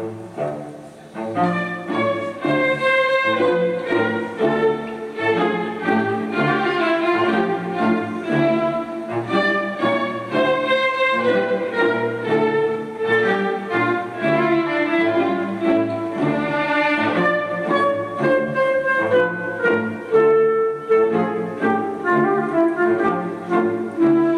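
Classical music for bowed strings, with violin and cello lines, playing continuously. It swells to full level about a second in.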